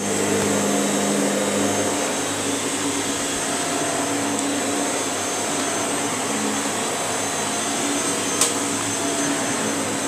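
Shark stick vacuum running steadily with its motor whine, being pushed over carpet. A single sharp click comes about eight and a half seconds in.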